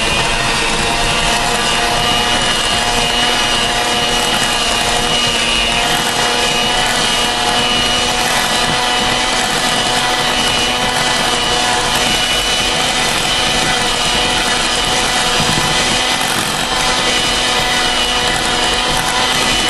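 Electric hand mixer running at one steady speed, its beaters churning drained crushed pineapple in a bowl, with a constant motor whine.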